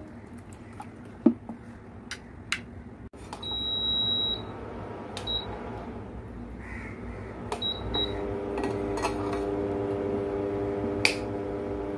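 Induction cooktop: a long electronic beep as it is switched on, then a few short key beeps, and from about 8 s a steady electric hum as it starts heating. A few sharp clinks of steel lids and bowls sound in between.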